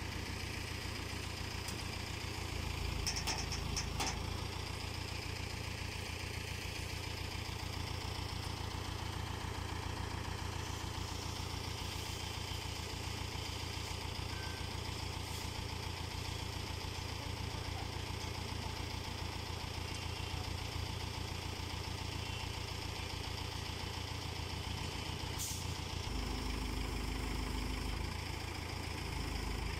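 Diesel engine of an Escorts Hydra mobile crane running steadily at idle, with a couple of faint clicks a few seconds in and a brief change in the engine note near the end.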